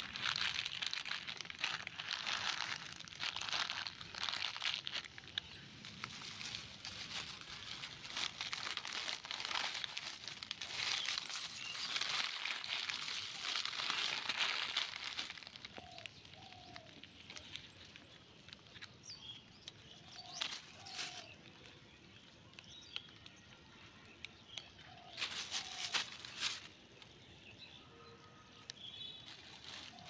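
A thin plastic carrier bag and plastic snack wrappers crinkling and rustling as they are handled and stuffed into the bag. The crinkling is dense for about the first half, then comes in occasional short bursts.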